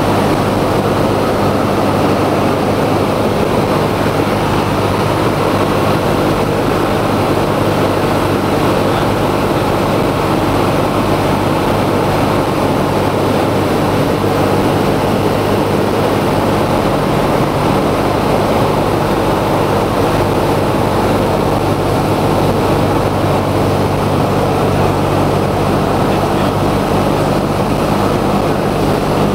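Cessna 172's piston engine and propeller droning steadily, heard inside the cockpit with the rush of airflow over the cabin.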